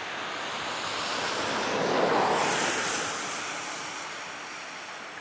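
Steady rush of river water, with a vehicle passing by: a swell that builds to its loudest about two seconds in and fades away over the next two seconds.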